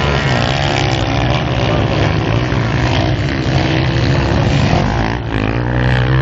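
Several motocross dirt bike engines revving hard, their pitch rising and falling with throttle and gear changes, with no let-up.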